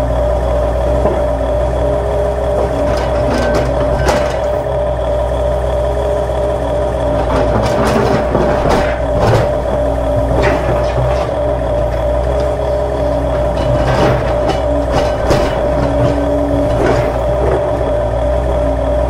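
Radio-controlled toy excavators digging: a steady motor whine runs throughout, with shorter motor whirs coming and going as the booms and buckets move. Dirt and stones scrape and clatter in brief crunches, most often around the middle and again about two thirds of the way in.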